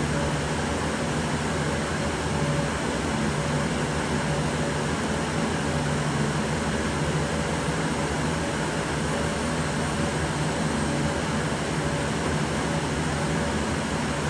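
Steady whir of cooling fans with a constant low hum underneath.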